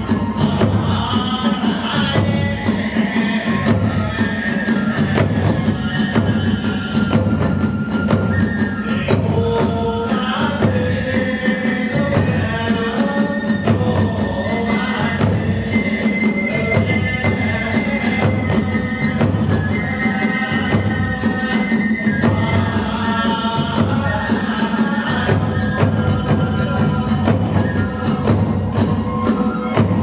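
Kagura ensemble music: drums beating a steady rhythm with clashing hand cymbals, under a high melody of long held notes.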